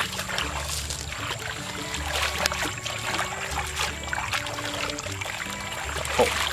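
Hands sloshing and splashing through shallow muddy water and soft mud, in many short wet splashes. Under them runs background music with a slow, even bass pulse about every second and a half.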